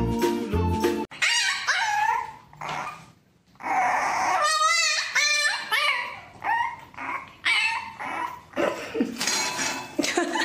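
Music with a steady beat ends abruptly about a second in. After that a puppy whines and yips in a run of high, wavering cries with short pauses between them.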